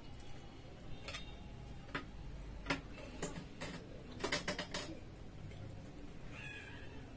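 Eating at a table: metal cutlery clicking and scraping on china plates, along with chewing. The clicks come one by one, with a quick run of them a little past halfway, and there is a short high squeak near the end.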